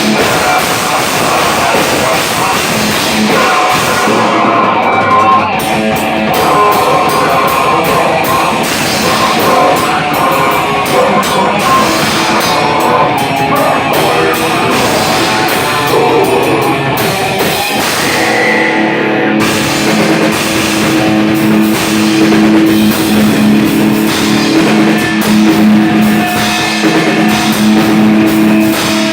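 Live rock band playing loud heavy music with electric guitars and a drum kit. The cymbals and high end drop out briefly twice, as the band hits short breaks.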